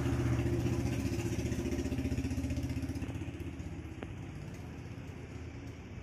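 A motor engine running steadily, its hum slowly fading away, with a faint click about four seconds in.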